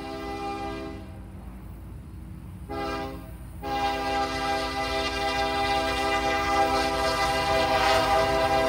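Union Pacific diesel locomotive's air horn sounding a steady multi-note chord: a long blast ending about a second in, a short blast, then a long blast held and growing louder as the train approaches, the long-short-long ending of a grade-crossing signal. Low rumble of the approaching freight train underneath.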